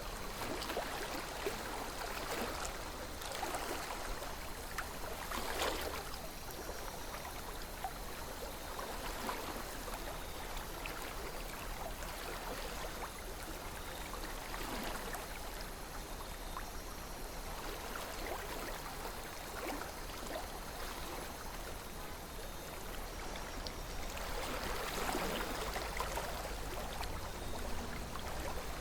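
River water flowing steadily, with small gurgles and splashes rising and falling every few seconds.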